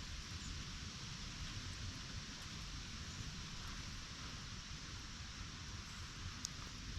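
Strong wind: a steady low rumble on the microphone under a continuous hiss of wind, with one faint click about six and a half seconds in.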